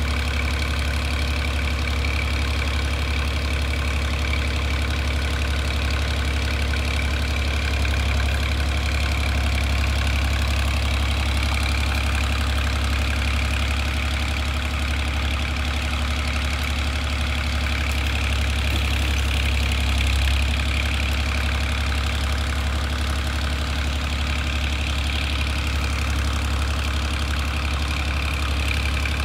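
BM Volvo 350 tractor engine running steadily at idle, powering the hydraulics of its mounted timber crane, with a slight swell in level about twenty seconds in.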